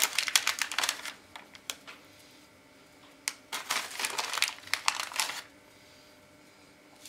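Crinkling, crackling bursts as ground black pepper is shaken out over raw meat in a glass baking dish: one burst in the first second, then a longer one from about three to five and a half seconds in.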